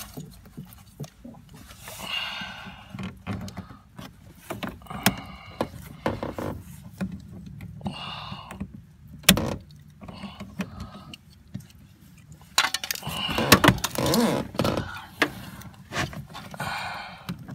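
Scattered clicks, knocks and light metallic rattles of hands working inside a car door, unhooking the door handle's plastic piece from its metal hook.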